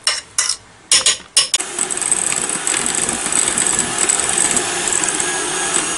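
A few knocks against a glass bowl, then about one and a half seconds in an electric hand mixer starts and runs steadily, its beaters whipping a thick cream cheese and cream mixture.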